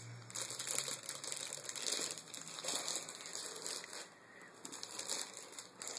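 Plastic packaging crinkling and rustling as it is handled by hand, an irregular crackle that is busier in the first half and thins out after about four seconds.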